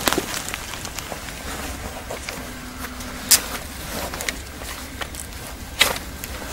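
A Gerber knife being handled and drawn from its sheath: a few sharp clicks, the loudest a little past the start, about halfway and near the end, over a steady low rumble.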